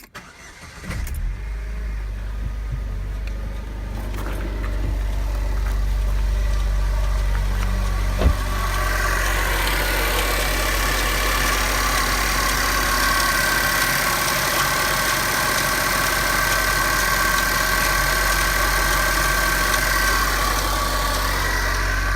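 Vauxhall Insignia turbo engine starting from cold about a second in and then running steadily, with a single sharp knock a few seconds later. A faint metallic ticking or pinging is said to come only when the engine is cold and to follow the revs; its cause is unknown to the owner.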